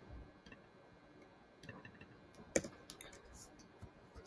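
Faint computer keyboard typing and mouse clicks: scattered light taps, with one louder click about two and a half seconds in.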